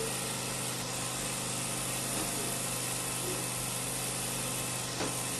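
A steady machine hum with an even hiss over it, and a single short knock about five seconds in.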